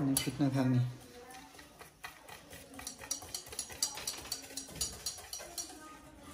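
Whisk or spoon stirring cake batter in a stainless steel bowl, a quick run of light metallic ticks and scrapes against the bowl. A voice is heard briefly at the start.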